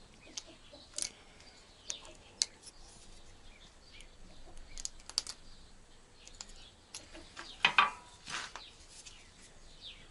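Quiet scattered clicks and metallic taps as a can of polyurethane foam is screwed onto a metal foam applicator gun, with a couple of louder short sounds about three-quarters of the way through.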